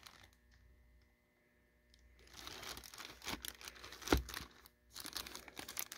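Clear plastic bag crinkling as the sealed action figure inside it is handled, in scattered crackles starting about two seconds in, with one sharper knock about four seconds in.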